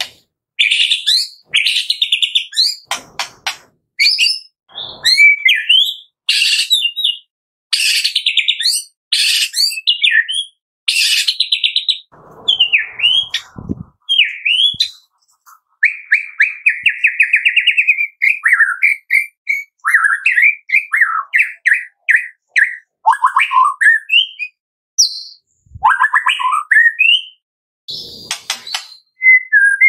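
White-rumped shama (murai batu) singing loud, varied bursts of song: harsh, buzzy rattles and sharp calls in the first half, then clearer whistled trills and slurred notes, with short pauses between phrases. This is the 'tembakan' song used as a lure to prompt another shama to sing.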